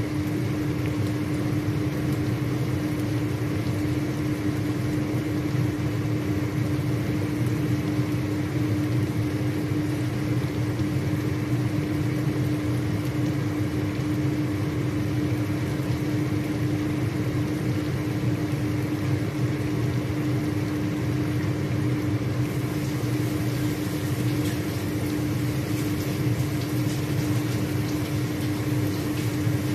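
Chicken pieces frying in oil in a wok, a soft sizzle under a steady machine hum with a constant low tone. The sizzle turns brighter about two-thirds of the way through.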